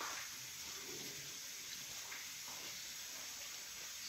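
Faint steady hiss of room tone, with soft chewing sounds and a few light clicks of a fork against a glass bowl.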